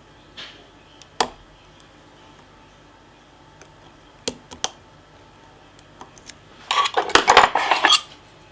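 Small metal lock-picking tools and lock clicking and clinking: a few single sharp clicks, then about a second of rapid metallic clatter near the end.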